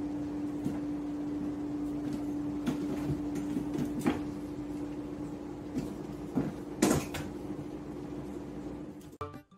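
A steady low hum with a few light knocks and taps scattered through it, the sharpest about seven seconds in.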